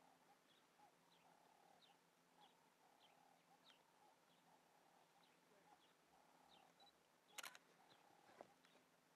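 Near silence with faint, short, high chirps repeating roughly every half second to second. A sharp click comes about two-thirds of the way in, followed by a softer one.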